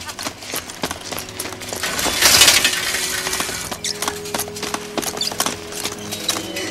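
Metal leg braces clanking and knocking in quick, irregular strikes as a boy runs hard on a dirt road, over a steady music score. A louder rattling, crunching burst comes about two seconds in.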